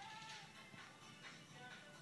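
Faint music: a simple melody of short held notes.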